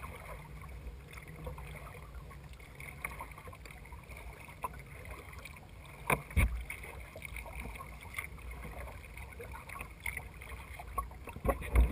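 Kayak paddling: water splashing and dripping from the paddle strokes close to the hull, with a couple of dull thumps, one about halfway through and one near the end.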